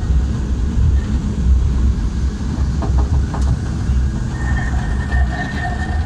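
Steady low rumble of a rubber raft riding a water rapids ride, with a thin steady whine coming in a little past the middle.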